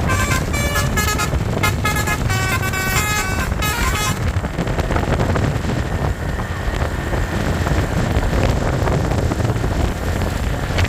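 A bus's Basuri 'telolet' multi-tone horn playing a quick tune of short stepping notes, cutting off about four seconds in. A steady low rumble of engine and road noise runs underneath and carries on after the horn stops.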